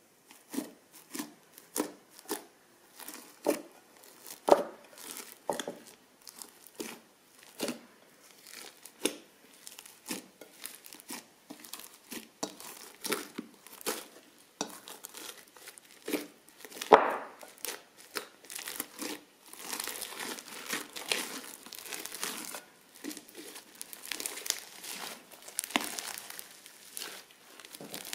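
Crunchy slime being squeezed and worked by hand, giving irregular crackling pops, then denser continuous crackling over the second half, with one louder crack about two-thirds of the way through.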